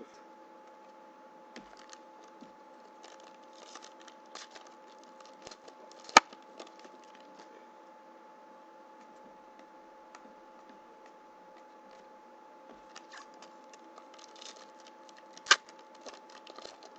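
Trading cards being handled on a table: soft rustling and light snaps as they are shuffled and flipped, with two sharp clicks, one about six seconds in and one near the end. A faint steady hum runs underneath.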